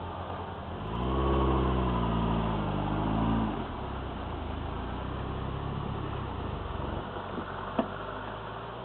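Off-road vehicle engine revving up about a second in, held at higher revs for a couple of seconds, then dropping back to a steady lower run. A single sharp knock near the end.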